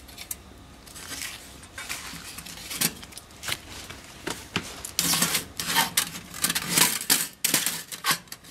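Light metallic clicks and clinks of a titanium wire grill grate and folding titanium firebox being handled and set in place, scattered at first and coming thick and fast in the second half.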